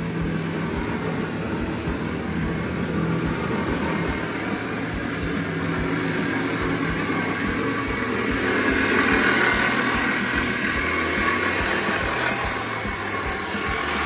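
A 6,000 lb electric winch motor running under load, reeling in its cable and pulling the Jeep along with the engine off. It runs steadily and gets louder about eight seconds in.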